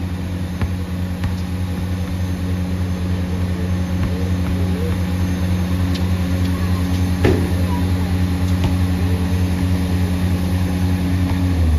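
Steady low hum of an idling engine, with a few sharp knocks from a basketball bouncing on the concrete driveway, the loudest about seven seconds in.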